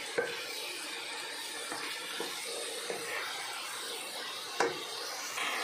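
Vegetables sizzling in a stainless steel pot while a wooden spatula stirs them: a steady hiss, with a knock of the spatula against the pot just after the start and a louder one about four and a half seconds in.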